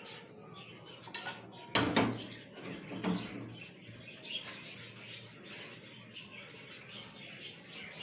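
Metal spoon scraping food out of a steel cooking pan onto a plate, with light scrapes and clicks, a loud clank about two seconds in and a smaller knock about a second later.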